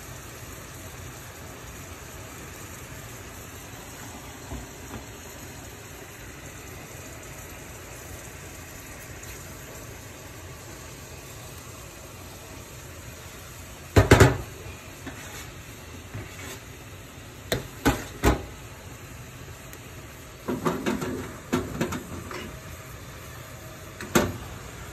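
Kakiage simmering in sauce in a small frying pan over a gas burner, with a steady bubbling hiss. Sharp clacks of utensils and dishes against the pan come about halfway through, then several more in the second half and one near the end.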